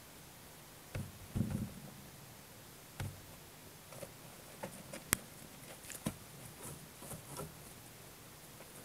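Rabbits scuffling in pellet litter in a plastic cage tray: scattered soft thumps and light rustles as one rabbit mounts and clambers over the other, with one sharp click about five seconds in.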